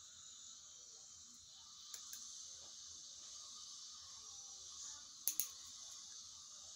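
Two sharp metallic clicks close together about five seconds in, with a smaller click earlier, from a steel orthodontic hand instrument snapping shut while braces are being worked on. Under them runs a faint steady hiss.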